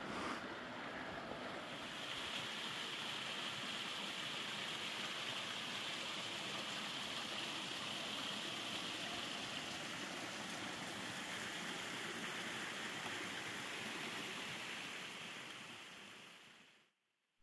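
Steady rush of running water from a stream, fading out near the end.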